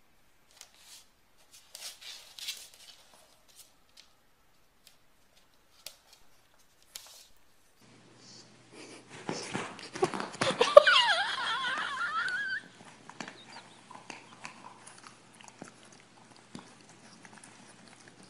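Faint scattered clicks and scuffs, then a bulldog puppy gives a loud, high, wavering whine for about two and a half seconds, rising in pitch at first, followed by soft scuffling under a steady low hum.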